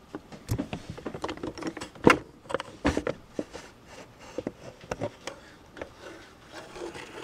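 Makeup being rummaged through in a clear acrylic organizer: a run of small irregular clicks and clacks of plastic cosmetic containers knocking against each other and the acrylic, the sharpest about two and three seconds in.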